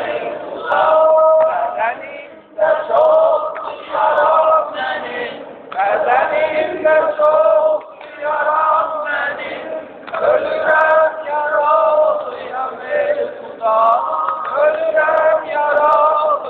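Male voices chanting an Ashura mourning lament for Imam Husayn. The chant comes in phrases a second or two long, with short breaks between them.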